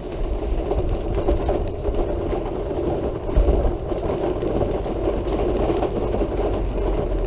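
Noisy wheelchair rolling along a hard path: a steady, loud rattling rumble with a few small knocks.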